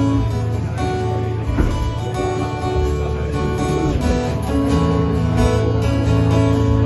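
Acoustic guitar strummed and picked in an instrumental break of a live song, with steady held chords changing every second or so.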